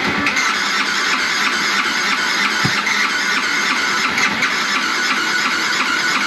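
Yamaha YZF R125's electric starter cranking its 125 cc single-cylinder engine with a steady whine. The engine does not start, and the cranking cuts off just after the end.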